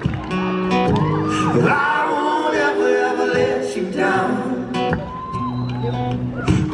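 Live band performing: several male voices singing held notes in harmony, heard from the audience in a large hall.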